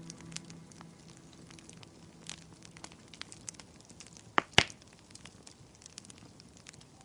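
Wood fire crackling in a fireplace: scattered small crackles, with two loud sharp pops in quick succession about four and a half seconds in.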